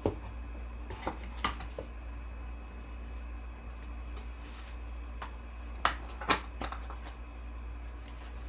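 Hands handling a trading-card box and its loose plastic wrap: a few sharp crinkles and clicks of plastic and cardboard, two about a second in and three more near the end, over a steady low hum.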